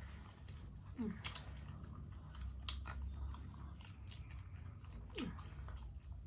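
A person chewing food close to the microphone, with scattered soft mouth clicks.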